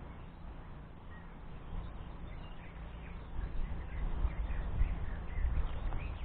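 Wind buffeting the microphone as a gusty low rumble that grows stronger about three seconds in, with faint short bird calls over it.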